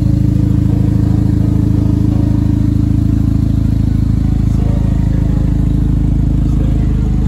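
A car engine idling steadily, loud and low-pitched.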